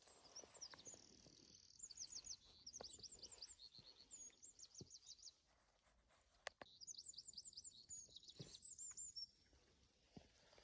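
Songbird singing faint, fast runs of short high chirps: one run for about five seconds, then a second of about three seconds, with a single sharp click between them.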